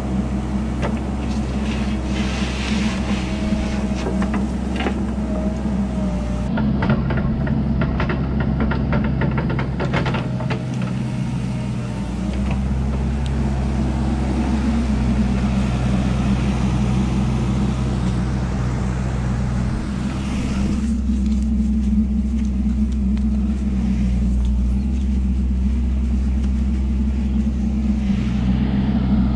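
Mini excavator's diesel engine running steadily, with clattering knocks of soil and stones falling from the bucket during roughly the first ten seconds.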